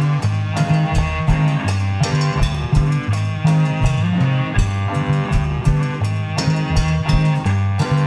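Live rock band playing an instrumental passage: drum kit keeping a steady beat under bass, guitar and cello.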